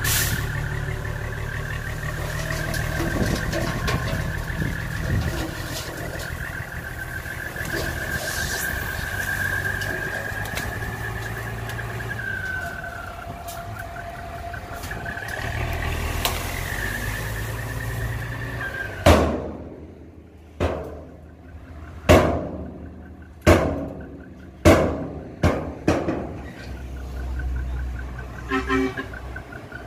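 Hyundai 5-ton dump truck's diesel engine running under load, with a high wavering whine that dips and bends in pitch while the tipper bed raises and unloads soil. A run of about six sharp bangs follows, a second or so apart, then a short horn-like tone near the end.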